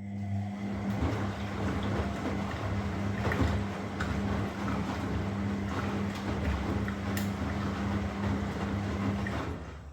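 Washing machine running: a steady motor hum under dense churning noise from the drum, with scattered clicks, dying away near the end.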